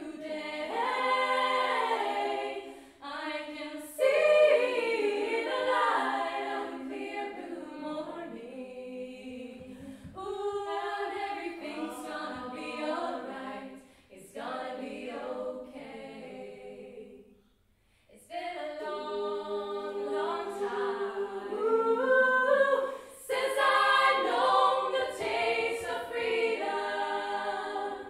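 Eight-voice women's choir singing a cappella, with a short pause between phrases about two-thirds of the way through.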